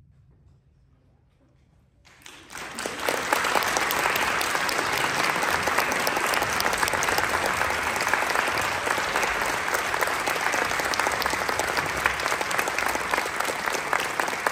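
Brief near silence, then audience applause that breaks out about two seconds in and carries on steadily.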